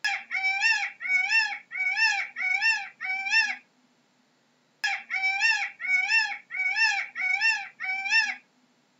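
Peacock calling: two runs of six short, quick calls, each rising then falling in pitch, with a pause of about a second between the runs.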